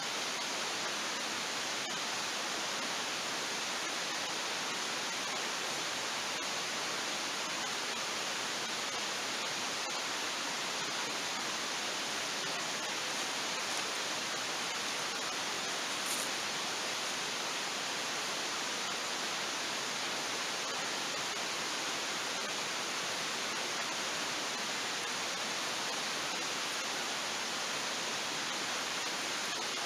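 Steady, even rushing noise with no rhythm or pitch, with one faint high click about sixteen seconds in.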